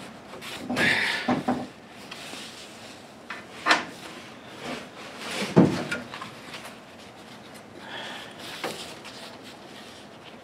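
Hands fitting a car headliner: the fabric rubs and rustles as it is pulled and stretched, with a few knocks and clicks. The loudest knock comes a little past halfway.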